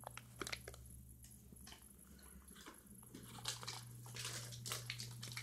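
Crinkly foil snack bag being handled, a faint string of short crackles that grows denser about three seconds in, over a steady low hum.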